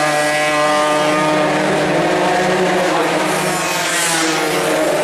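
Suzuki Xipo (Satria 120) two-stroke racing motorcycles running hard around the track, a loud, steady high-revving engine note whose pitch wavers as the bikes go by.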